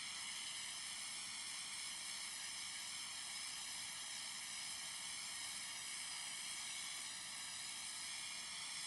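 Steady high-pitched hiss that does not change, with no distinct sound events in it.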